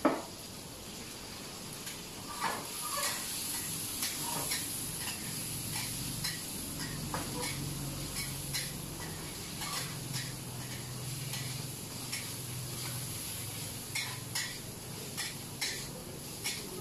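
Utensils clinking and knocking against a pan and dishes, over the steady hiss of food sizzling in the pan. A sharp knock comes right at the start, and short clinks follow irregularly, closer together near the end.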